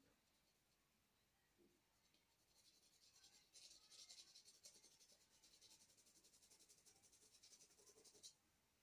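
Pencil scratching on drawing paper in quick, repeated back-and-forth strokes, faint, starting about two and a half seconds in and stopping abruptly near the end.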